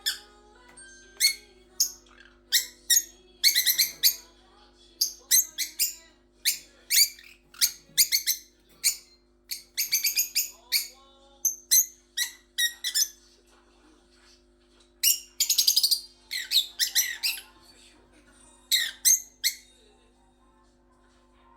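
Small pet parrots calling in their cage: a string of sharp, high-pitched chirps and squawks, some single and some in quick chattering clusters, with a quieter spell about two-thirds of the way through.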